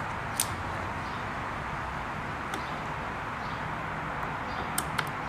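Steady background hiss with a few sharp clicks, the clearest near the start and two close together near the end, from hands working the hook drive gear under a Singer Stylist 522 sewing machine while the hook timing is adjusted.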